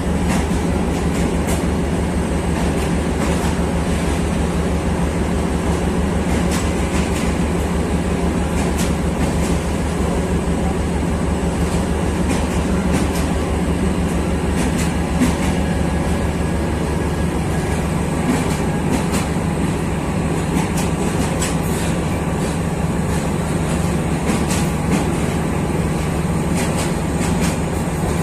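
Passenger express train's coaches rolling along the platform track, a steady low hum with irregular sharp clicks of the wheels over the rails.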